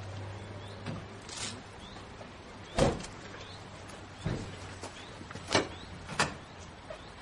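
A steady low hum with a brief hiss about a second and a half in and four sharp knocks or thumps, the loudest nearly three seconds in.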